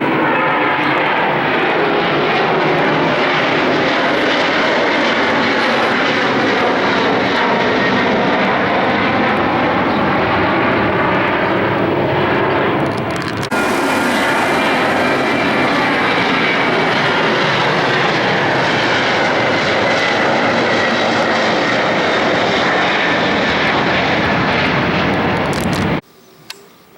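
Boeing jet airliner engines running loud and steady, with tones that slowly rise and fall. There is a break about halfway, and the sound cuts off abruptly shortly before the end.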